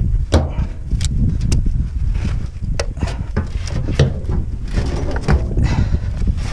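Irregular knocks and clicks of hand tools working on a manure spreader's floor-conveyor tensioner, over a steady low rumble.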